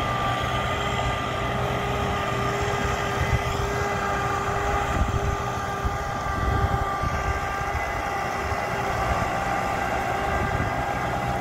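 Diesel engine of heavy farm machinery running steadily at constant speed, with a steady whine held at one pitch over the engine's rumble.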